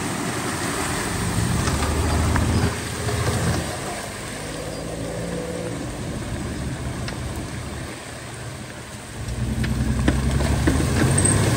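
Off-road 4x4 engine revving hard in two stretches, early on and again near the end, over the steady hiss of rain.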